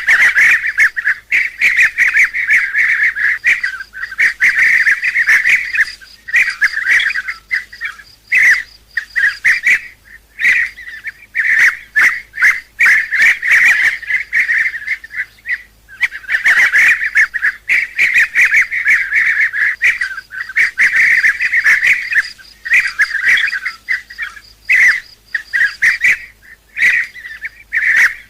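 Bee-eaters calling: a dense run of rapid, overlapping calls in bouts broken by brief pauses.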